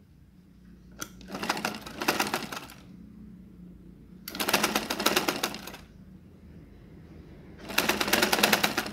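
Black domestic sewing machine stitching in three short runs, each a second or two long, with a fast, even rattle of the needle and stops in between.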